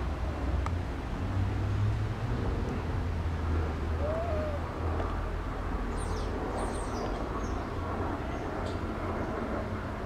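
Outdoor ambience with a steady low rumble, one short rising-and-falling bird call about four seconds in, and a few brief high bird chirps around six to seven seconds in.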